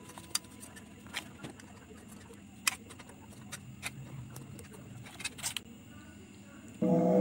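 Scattered light clicks and taps against a steel pot as fried goja pieces are put into sugar syrup, about half a dozen at uneven intervals over a faint background. Background music comes in near the end.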